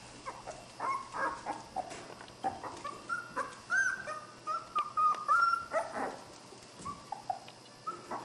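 Border Collie puppies yipping as they wrestle in play: many short high-pitched yips, with a few longer drawn-out cries in the middle.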